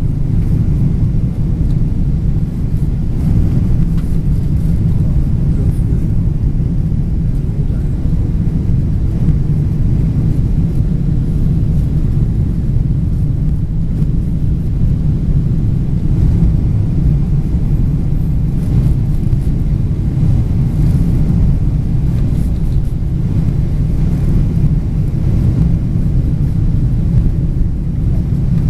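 Airliner cabin noise heard from a passenger seat: a steady, loud low rumble of the engines and airflow.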